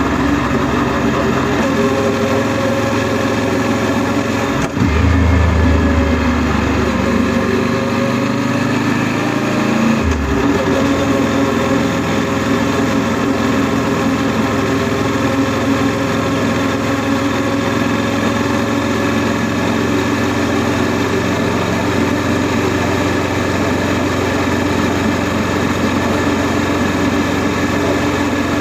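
Honda NC700S's 670 cc parallel-twin engine running steadily while riding. A sharp click comes about five seconds in, followed by a deeper, louder low rumble for about five seconds before the engine note settles again.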